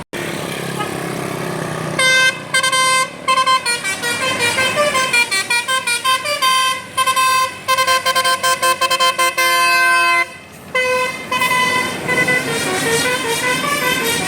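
Bus 'telolet' musical horn of the Basuri type playing a fast tune of short horn notes, starting about two seconds in, over vehicle noise. The melody breaks off briefly near the end and then carries on.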